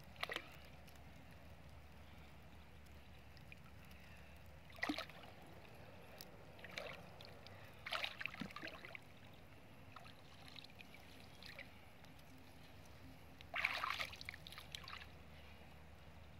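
Water sloshing and splashing in a few short bursts as someone moves about waist-deep in a muddy pond, the loudest burst near the end.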